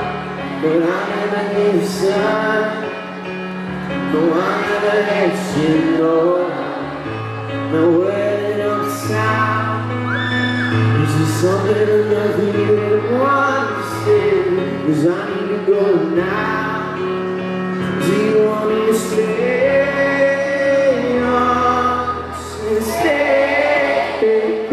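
A male singer singing a slow song over held electric piano chords, the voice moving in long phrases through the whole stretch.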